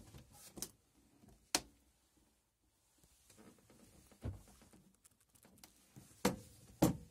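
Knocks and clunks of hinged worktop covers being lifted and folded back off a motorhome's gas hob and sink, with the two loudest knocks near the end, about half a second apart.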